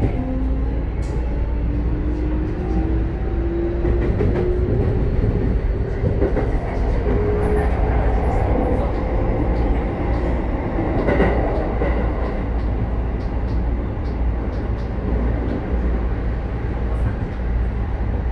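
Keikyu 1000 series electric train under way, heard inside the car: its Mitsubishi IGBT-VVVF inverter and traction motors whine, rising steadily in pitch over the first several seconds as the train accelerates. Under it runs steady rolling noise of wheels on rail.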